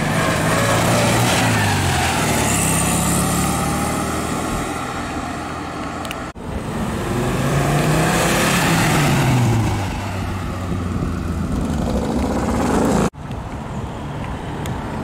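Classic cars driving past one at a time, in three abruptly cut clips. First an air-cooled Volkswagen Beetle moves off with a rising engine note. Then a red Audi coupé passes, its engine note climbing and falling away. Last comes an older saloon, heard more quietly as it approaches.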